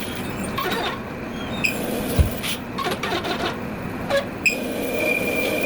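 Metal lathe running while machining a steel washer: a steady machine noise with scattered clicks and knocks, and a steady high squeal of the cutting tool that starts about four and a half seconds in.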